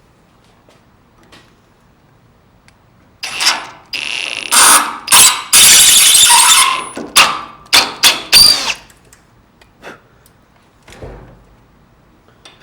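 Electric drill boring out the threaded port of a small brass valve, in several loud stop-start bursts beginning about three seconds in and ending near nine seconds, with a high ringing whine from the bit cutting the brass.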